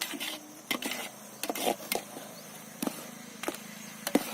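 Metal utensil clicking, knocking and scraping against a cooking vessel, about a dozen irregular strikes, some ringing briefly.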